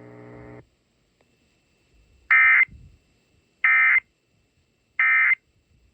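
Emergency Alert System end-of-message (EOM) data bursts: three short, loud bursts of shrill digital tones, about a second and a half apart, marking the end of the alert. A faint steady hum cuts off in the first second.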